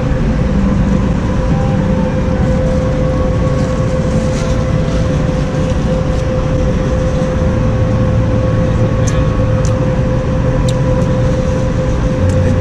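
Steady street traffic noise, with the low rumble of a large vehicle engine running close by and a steady hum held throughout.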